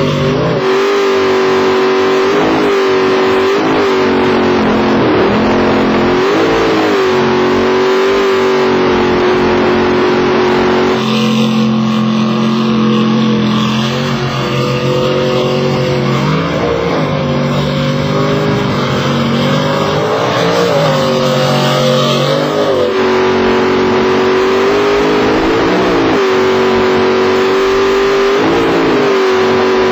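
Racing powerboat engines running hard at high revs, the pitch dipping briefly every second or two as the throttle is eased and picked up again. For a stretch in the middle a lower engine note takes over.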